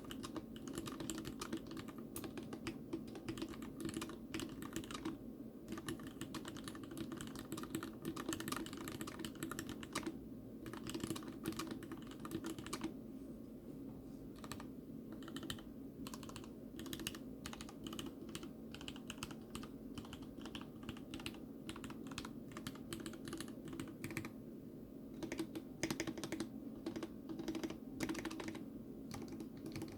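Typing on a custom TX87 mechanical keyboard with Cherry MX RGB Red linear switches, their sliders and springs lubed, on a stainless steel plate. A steady run of keystrokes with short lulls about five and thirteen seconds in.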